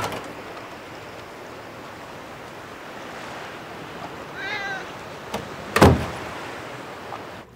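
A wooden front door shuts with a single loud thud a little before six seconds in. A cat gives one short meow just before it, over a steady background hiss.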